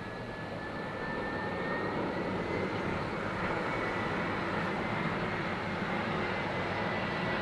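Jet engines of an easyJet Airbus airliner on final approach with its landing gear down: a steady rushing engine noise with a thin high whine, growing gradually louder as the plane nears.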